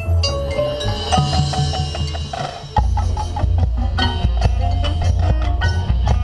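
Marching band playing a competition field show: mallet percussion and drums with many sharp struck notes, and about halfway through the band comes in louder with a heavy bass.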